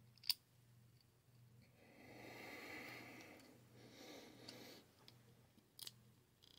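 Quiet handling of a lock pick clamped in a binder clip: one sharp click about a third of a second in, a soft rush of noise through the middle, and a few small clicks near the end.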